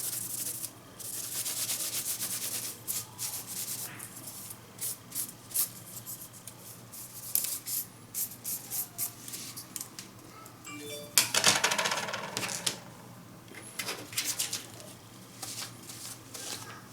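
Scrubbing and rubbing on the corroded contacts of a TV remote control, cleaning them of battery-leak rust. It comes in uneven spells of hissy strokes and short scratchy clicks, with the loudest spell about eleven seconds in.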